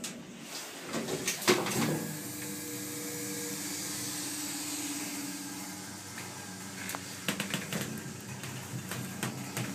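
Hydraulic lift's pump motor running with a steady hum and hiss, starting after a cluster of clunks about a second in. More clicks and knocks come near the end.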